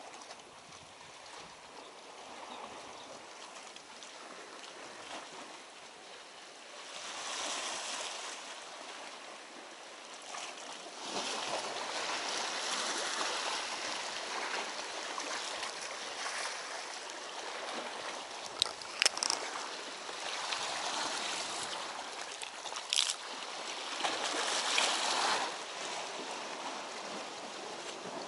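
Seawater washing and splashing over shore rocks, rising and falling in surges. Two short sharp clicks come in the second half.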